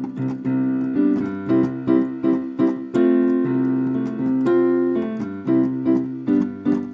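Piano accompaniment playing the opening of a song: chords and a melody struck several times a second, each note fading after it is struck.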